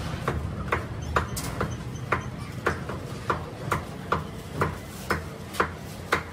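Butcher's cleaver chopping chicken on a wooden log block: a steady series of sharp knocks, about two a second.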